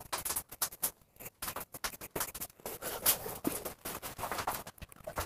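Wooden graphite pencil scratching on lined notebook paper in quick, irregular strokes, sped up in fast motion.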